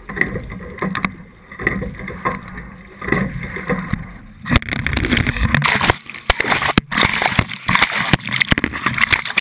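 The camera's own sound from a single sculling boat under way: water rushing and splashing against the hull, in uneven surges with clicks. About four and a half seconds in it becomes louder, rough splashing and buffeting right on the microphone.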